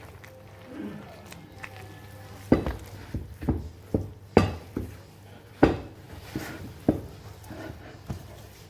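Kitchen clatter: about a dozen sharp, irregular knocks and taps of utensils and containers against a mixing bowl or worktop, over a faint steady low hum.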